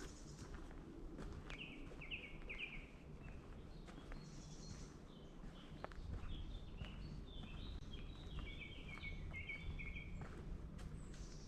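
A songbird singing two phrases of quick repeated notes, one short run about a second and a half in and a longer run in the second half. Under it are soft footsteps on a woodland path and a low steady rumble.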